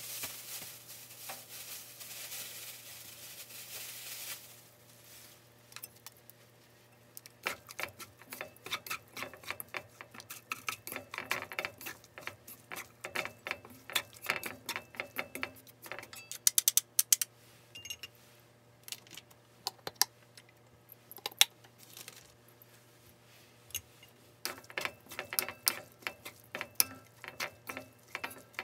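Shredded cabbage stir-frying in a pan: a sizzle for the first few seconds, then rapid irregular clicking and tapping of a wooden spatula and wooden chopsticks against the pan as the cabbage is tossed.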